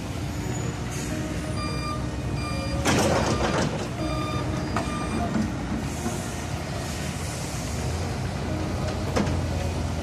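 Heavy diesel machinery running with a low steady rumble, while a backup alarm beeps repeatedly for a few seconds. About three seconds in, a short, loud rush of noise stands out above the rest.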